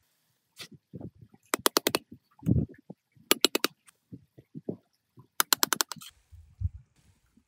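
Three quick runs of sharp clicks, five or so in each, with duller knocks and thuds in between.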